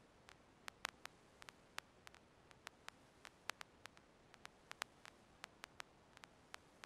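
Near silence: a faint steady hiss broken by irregular sharp clicks, a few each second, like crackle on a silent recording.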